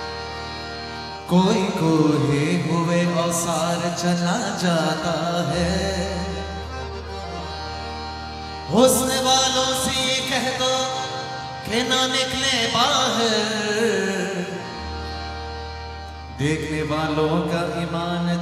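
Male voice singing a qawwali in long, sliding, ornamented phrases over a steady harmonium and keyboard drone. The voice enters with a fresh phrase about a second in, again near the middle, and again near the end.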